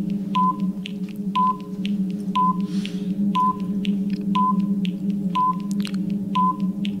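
Quiz countdown timer sound effect: a steady low drone with a short high beep about once a second, running while a contestant has time to answer a question.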